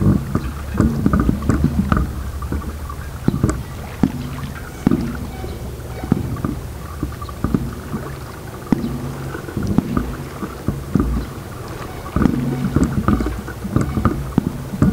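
Scuba regulators heard underwater as two divers share air: irregular bursts of rumbling exhaled bubbles, with many sharp clicks in between.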